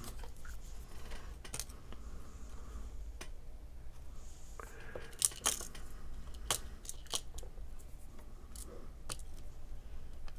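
Scattered light clicks and taps of small paper-craft pieces being handled and set onto a card, over a low steady hum.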